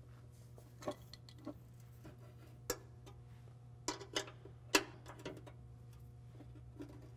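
Light metallic clicks and taps of a 12 mm wrench working a bolt loose from a brake-line bracket on a truck frame, coming irregularly, with the sharpest about five seconds in. A steady low hum runs underneath.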